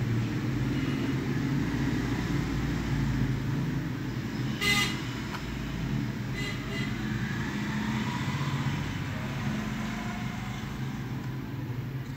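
Steady low rumble of road traffic, with a short horn toot a little before the middle and a fainter one about two seconds later.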